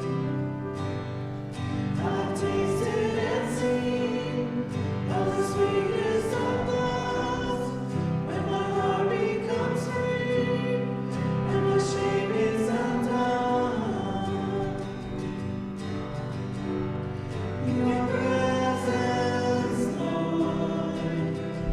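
Choir singing a religious song over a sustained instrumental accompaniment.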